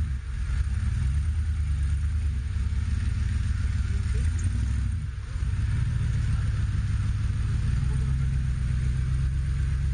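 Engine of a lifted Jeep 4x4 on mud tyres running under load as it crawls through deep mud, a low rumble with the revs stepping up and down. It eases off briefly about five seconds in.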